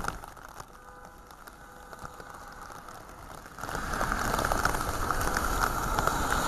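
Heavy rain falling on a flooded street: a steady hiss, softer for the first few seconds, then markedly louder from just past halfway.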